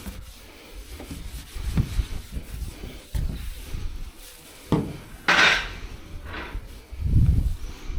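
Irregular rubbing and knocking from hand work on the truck's bodywork during paint prep, with a short hiss about five seconds in and a smaller one a second later.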